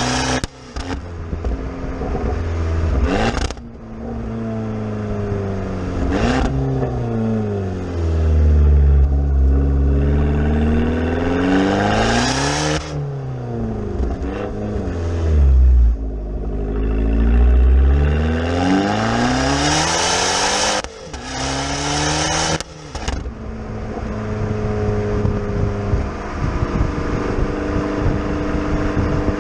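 Abarth 500 Esseesse's turbocharged 1.4-litre four-cylinder through a Monza sports exhaust, driven hard: the revs repeatedly fall and climb again, with sharp cracks where the sound briefly cuts. It settles to a steady engine note for the last few seconds.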